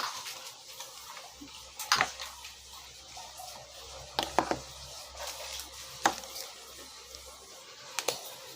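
A few light, sharp clicks and taps of a small plastic toy being handled, about five in all, spread over several seconds with a faint low hum under them.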